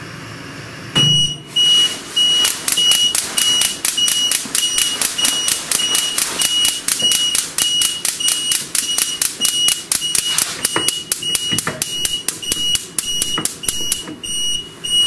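High-pitched electronic alarm beeping in quick, even repeats, roughly two to three beeps a second, starting about a second in with a short thump.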